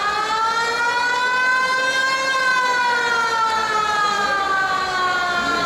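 Koshien Stadium's big motor siren wailing: its pitch climbs, peaks about two seconds in, then slowly sinks.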